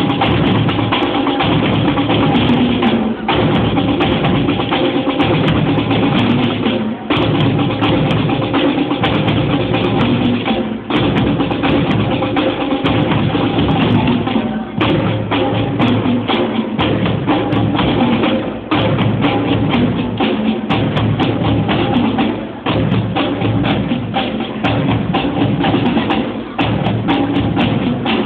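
School marching drumline of snare drums, a set of quad tenor drums and three bass drums playing a cadence: dense, rapid drum strokes with a short break about every four seconds.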